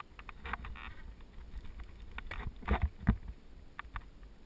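Mountain bike descending a stony dirt trail: irregular knocks and rattles from the bike as it rides over bumps and stones, over a low rumble, with the loudest knocks a little before and just after three seconds in.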